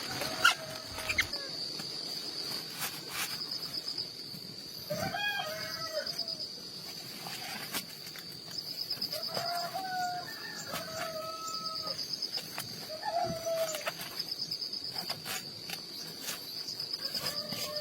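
Chickens calling now and then in short pitched calls over a steady, high, pulsing drone of insects, with a few sharp clicks.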